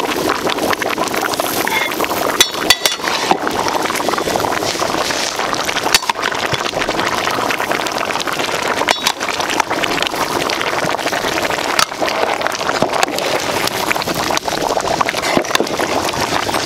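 Rice and jackfruit in spiced water boiling hard in a large aluminium pot: a steady bubbling and seething. A few sharp knocks stand out over it.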